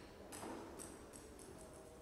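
Table tennis ball bouncing on a hard surface, a string of light clicks that come quicker and fainter as it settles.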